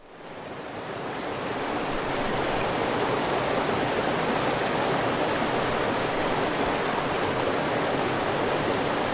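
Rushing water of a river or stream, fading in over the first couple of seconds and then running steadily.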